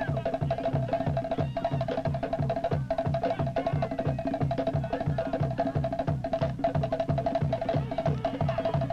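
Polynesian drum-dance music: rapid wooden slit-drum beating over a steady low drum beat of about three strokes a second.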